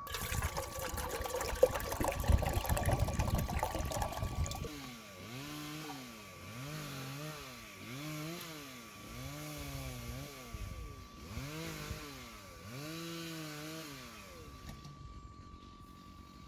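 Bonfire crackling for the first few seconds. Then a chainsaw revs up and down over and over, about once every second and a half, as it cuts.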